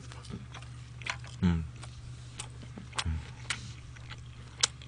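Close-miked chewing of a mouthful of food, with wet mouth smacks and clicks and a couple of short low hums of the voice. Sharper clicks come near the end. A steady low hum runs underneath.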